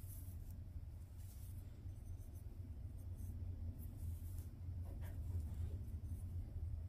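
Faint, irregular scratching and rustling of yarn being worked onto metal knitting needles, over a steady low hum.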